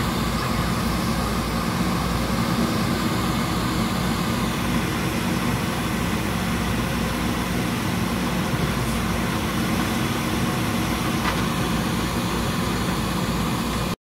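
Diesel engine of a JCB 3DX backhoe loader running steadily while its backhoe digs in mud.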